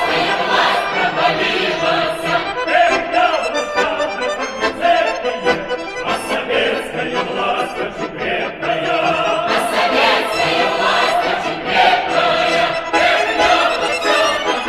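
Background music: an accordion playing a lively Russian folk tune, with no sung words.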